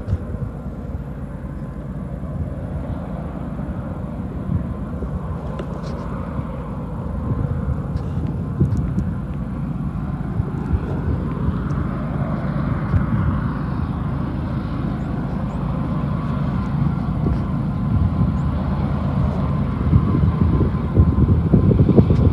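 Diesel locomotives of an approaching freight train, a distant engine drone that grows slowly louder, with wind buffeting the microphone.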